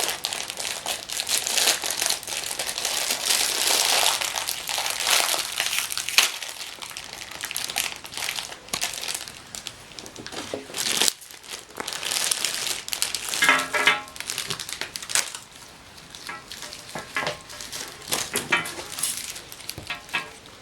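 Plastic chocolate-bar wrappers crinkling and rustling as the wrapped bars are handled and sorted, in irregular crackly bursts throughout.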